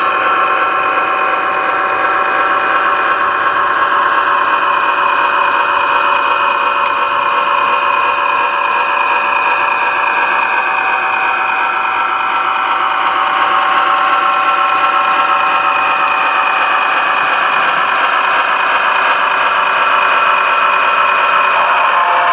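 HO scale model of a BNSF SD9 diesel locomotive running slowly with a train of hopper cars, giving a steady diesel engine sound whose tones drift slightly in pitch, growing a little louder as it comes nearer.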